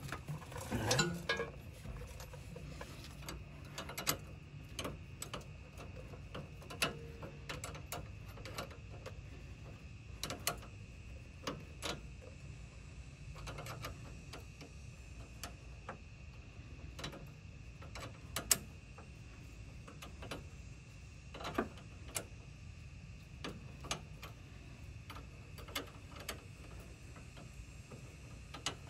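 Irregular light clicks and metallic taps of hand tools and metal fittings as a brake line is fitted, over a faint steady hum.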